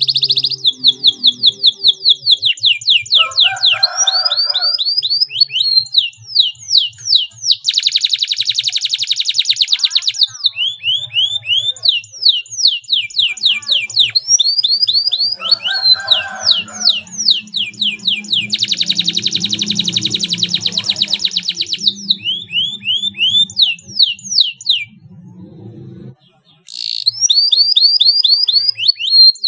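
Domestic canary singing: quick series of repeated high notes broken by two long, very fast, tightly packed trills (rolls), with a brief pause near the end.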